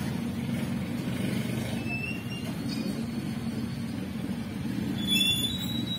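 Steady low engine rumble, with a few short high chirps about two seconds in and a brief cluster of them near the end.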